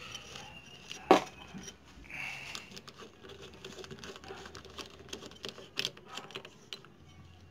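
Metal clutch parts being fitted by hand onto the clutch hub of a motorcycle engine: scattered small metallic clicks and ticks, with one sharp click about a second in.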